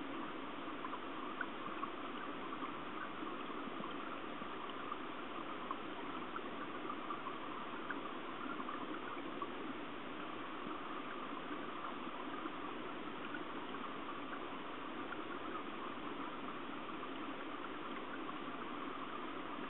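Steady rushing of stream current heard underwater through the camera housing, muffled, with faint scattered ticks.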